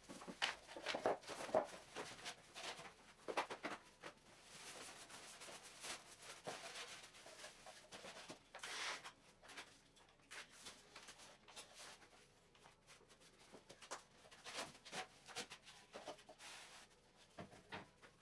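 Faint scuffs, knocks and rustles of someone working on a bare concrete floor, handling plastic-wrapped wooden battens, with a few sharper knocks in the first four seconds.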